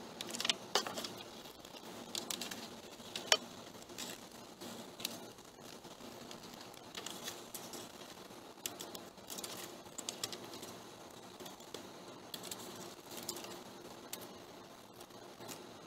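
Scissors cutting paper around the painted dragonfly wings: a run of soft snips and paper rustling as the sheet is handled and turned, with one sharper click a little over three seconds in.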